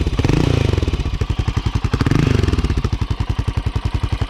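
Motorcycle engine idling with an even, pulsing beat of about ten pulses a second, the throttle blipped briefly at the start and again about two seconds in.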